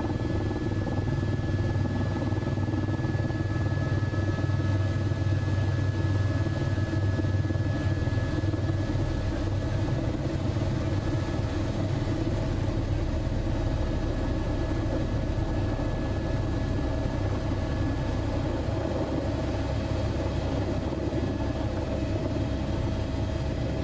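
Helicopter rotor and engine noise: a steady low drone with a few faint, steady high whines above it.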